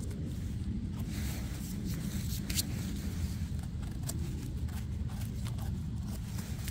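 Footsteps and rustling through leaf litter on the forest floor, with scattered small cracks and one sharper crack about two and a half seconds in, over a steady low rumble on the microphone.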